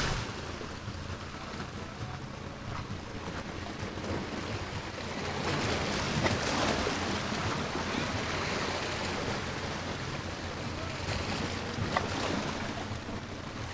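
Small sea waves washing and splashing against rocks at the water's edge, with wind buffeting the microphone.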